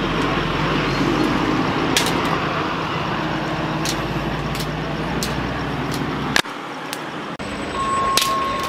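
Steady rumble of road traffic with scattered sharp clicks. The sound drops out abruptly about six and a half seconds in and returns a second later.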